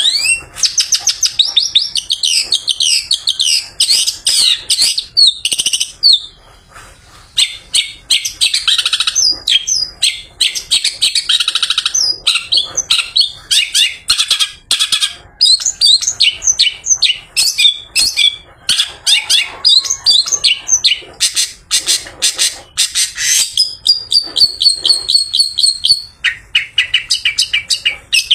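Long-tailed shrike singing a fast, varied song of chirps, quick rising and falling notes and rapid rattling trills, with a brief pause early on and a held whistle near the end.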